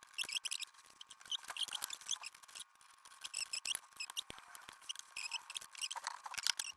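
Quick small clicks and short high-pitched chirps and scrapes of a desktop PC's parts being handled and fitted together during reassembly.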